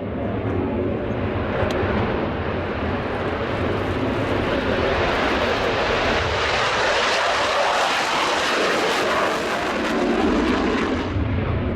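Military jet aircraft passing, a loud engine noise without distinct tones that swells to a peak about seven to nine seconds in and loses its sharp upper hiss near the end.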